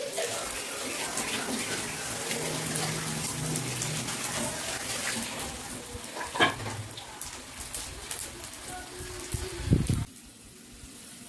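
Salted fish frying in shallow oil in an aluminium wok: a steady sizzle with fine crackling. A knock comes about six seconds in and a louder thump near ten seconds, after which the sizzle stops suddenly.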